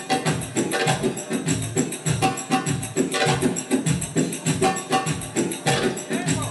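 Belly-dance music driven by fast, steady percussion: tambourine jingles and drum beats many times a second, with a short repeated melodic figure over them.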